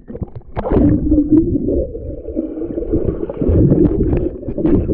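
A splash into a swimming pool about half a second in, then muffled underwater rumbling and gurgling of moving water heard through a GoPro's waterproof housing as a swimmer moves about below the surface.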